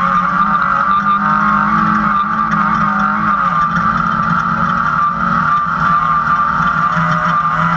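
Class 2000 off-road race car's engine running hard at speed, heard from inside the cockpit, steady and loud with small rises and dips in pitch.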